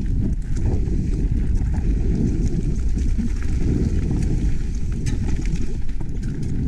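Wind buffeting the ride camera's microphone during a mountain bike descent, a steady low rumble, with scattered light clicks and rattles over the trail.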